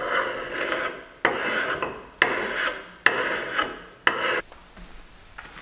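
Hand gasket scraper being drawn over an aluminum engine mating surface to take off old RTV gasket material: about five rasping strokes, roughly one a second, each starting sharply and fading. The scraping stops a little past four seconds in.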